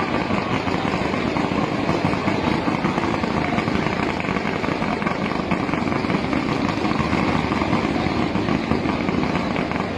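Fireworks going off in a dense, continuous crackling and hissing wash, with no single bang standing out.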